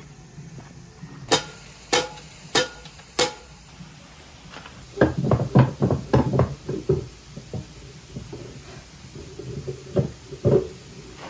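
Four sharp clicks about half a second apart, then a flurry of wooden knocks and rattles, and two heavier wooden clunks near the end as the wooden handle of a wooden box is worked back and forth.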